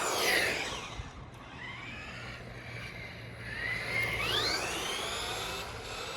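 Nikko Dandy Dash radio-controlled car's small electric motor and gears whining, the pitch dropping sharply right at the start and climbing again about four seconds in as the car slows and speeds up.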